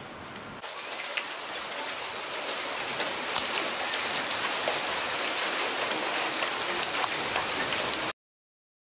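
First drops of a rain shower falling on a paved concrete courtyard: a steady hiss of rain with scattered sharper ticks. It begins about half a second in and cuts off abruptly near the end.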